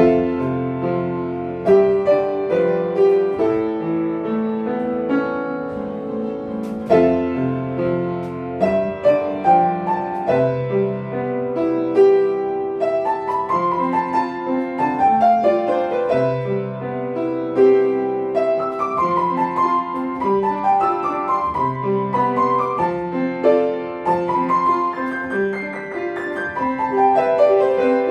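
Piano playing a melody over held low notes, with a steady succession of struck notes.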